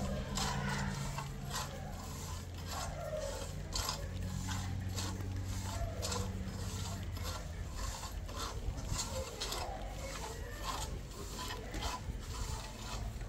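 A metal spoon stirring and scraping a thick wheat mixture in a wide metal pan over a wood fire, with repeated rubbing scrapes, roughly one or two a second.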